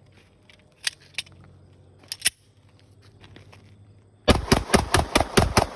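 A few sharp, light clicks, then a rapid string of about eight shots from a compact 9mm pistol, roughly five a second, starting a little over four seconds in.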